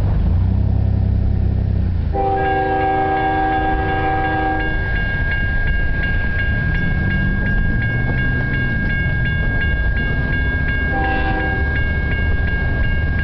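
An approaching CSX freight locomotive's multi-chime air horn blows a long blast about two seconds in, a short one near the end, and starts another at the very end, over a low rumble. A grade-crossing bell rings steadily, with strokes about two to three times a second, from the first horn blast on.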